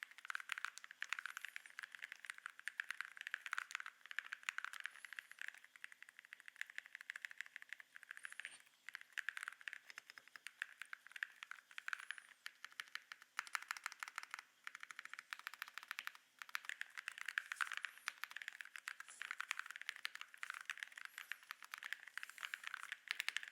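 Typing on a mechanical keyboard fitted with ceramic keycaps: a fast, continuous run of sharp clicks and clacks with only brief pauses.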